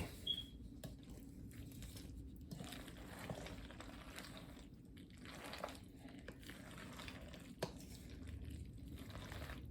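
Macaroni salad being stirred and folded in a bowl: faint, soft wet squishing with a few light clicks.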